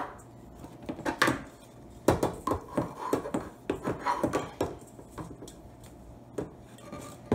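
Irregular metal clanks and knocks of a stainless steel mixing bowl and beater being handled on a KitchenAid stand mixer, as the bowl is worked loose from the mixer's bowl-lift arm.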